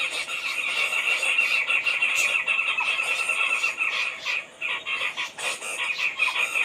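A continuous high, rapid buzzing trill from calling animals, with scattered short chirps over it; it dips briefly around two-thirds of the way through.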